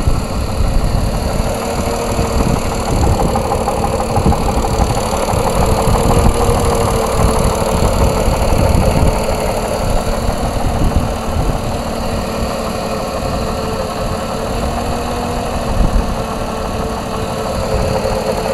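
Mercedes-Benz M104 straight-six engine idling steadily with a knock (стук) running through it.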